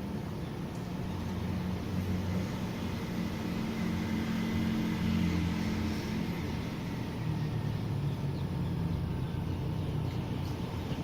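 A motor vehicle passing by: a low engine rumble that swells to its loudest near the middle and then eases, over a steady hiss of background noise.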